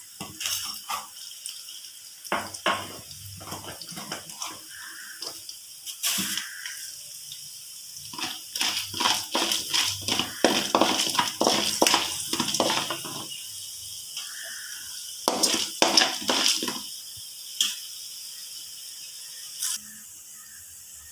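Urad dal and chana dal, with mustard seeds, sizzling and crackling in hot oil in a metal kadai as a tempering fries. A wooden spatula scrapes the pan in stretches, and the crackling is busiest in the middle and again a little later.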